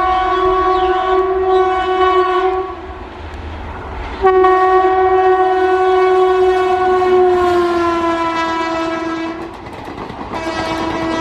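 WAG-5 electric locomotive's horn sounding long blasts as it hauls a passenger train past at speed. One blast ends about two and a half seconds in. A longer one starts about four seconds in and slides down in pitch toward its end, and another begins near the end, all over the low rumble and clatter of the train on the track.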